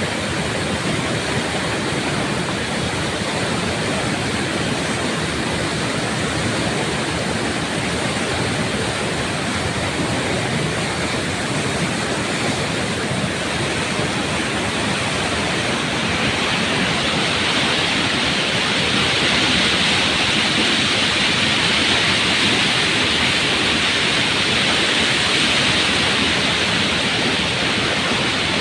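Floodwater rushing in a steady, continuous wash of noise. It grows somewhat louder and hissier a little past halfway, then eases slightly near the end.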